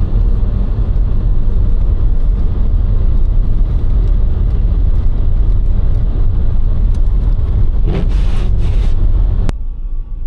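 Car driving on a snow-covered road, heard from inside the cabin: a loud, steady low rumble of engine and tyres, with a short swell of hiss about eight seconds in. The sound then cuts off suddenly about nine and a half seconds in.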